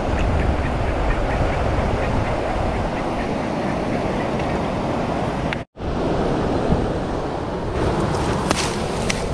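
Steady rush of a flowing river with wind buffeting the microphone. The sound drops out completely for an instant a little past the middle, then resumes, with a few faint ticks near the end.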